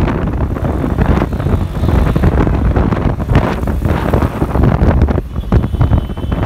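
Wind buffeting the microphone on a moving vehicle, mixed with the rumble of road and city traffic noise.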